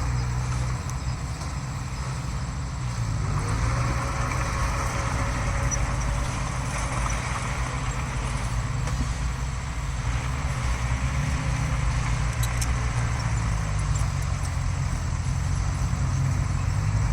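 Heavy diesel earthmoving machinery running steadily, its engine note rising slightly about three seconds in.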